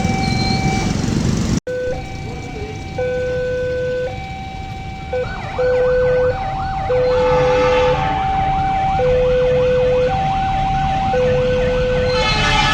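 Railway level-crossing warning alarm sounding ahead of an approaching train: two electronic tones alternating about once a second, high and low. From about halfway, a faster warbling chirp joins in.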